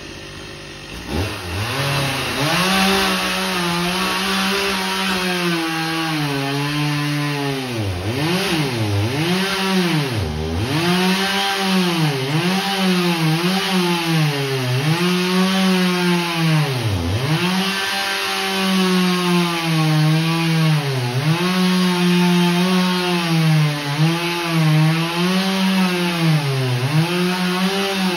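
Chainsaw throttled up about a second in and cutting into the trunk of a felled Washingtonia filifera palm. The steady high pitch drops sharply again and again as the chain bogs down in the fibrous palm wood, then climbs back.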